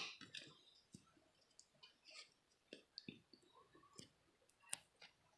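Faint, scattered clicks and light rustles of Topps baseball cards being handled by hand and set down on a pile, with one sharper click near the end.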